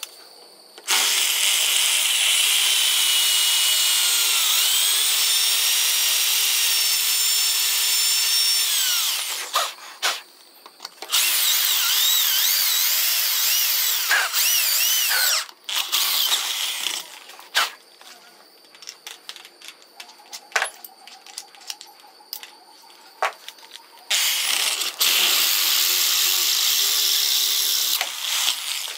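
Power drill boring into a metal part held in a bench vise, running in several long bursts with a high whine whose pitch dips and wavers as the bit bites into the metal. In the middle comes a quieter stretch of small clicks and ticks between bursts.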